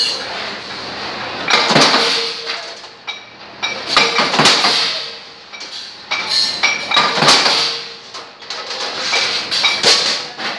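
Sheet steel being punched on a mechanical flywheel punch press: a cluster of sharp metallic clanks and rattles about every two and a half seconds, with the sheet ringing after each.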